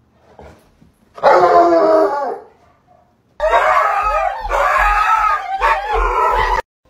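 Dogs howling: first one short howl lasting about a second, then after a brief gap a longer howl of about three seconds from two dogs together that cuts off abruptly, with low thuds underneath.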